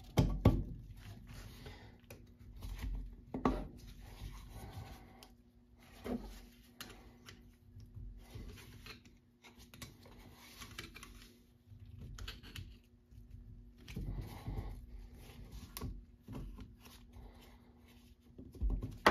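Piston ring being spread and worked into its groove on an engine piston by gloved hands: scattered light metal clicks amid soft scraping and glove rustling.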